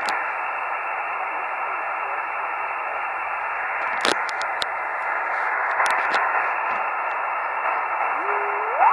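Amateur radio transceiver's speaker giving steady, band-limited hiss while tuned to 145.96 MHz in upper sideband on the 2 m satellite band, with a few sharp clicks in the middle. Near the end a whistling tone slides up in pitch and starts back down: a carrier being tuned across.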